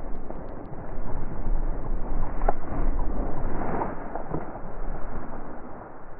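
Wind rumbling on the microphone, mixed with a steady rustle and a few soft crackles of dry cover being pushed through.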